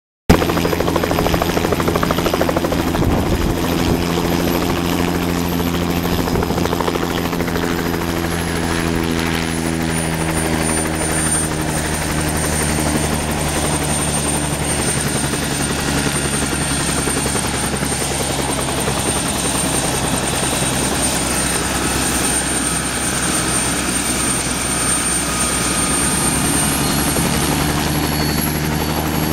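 Bell 206 JetRanger helicopter running on the ground, its two-blade rotor turning steadily and the Allison 250 turboshaft giving a high whine. The whine glides down in pitch about a third of the way in and then holds steady, as the engine settles toward ground idle after landing.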